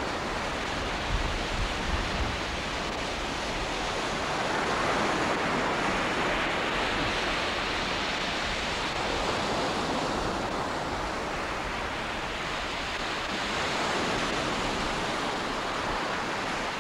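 Ocean surf breaking and washing up the shore, a continuous rushing that swells and eases as each wave comes in.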